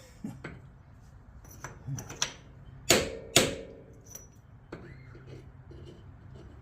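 Metal hammer blows on a steel bushing driver, tapping a new tailshaft bushing into a 200-4R transmission's tail housing. There are several light clinks, then two hard, ringing strikes about three seconds in, half a second apart.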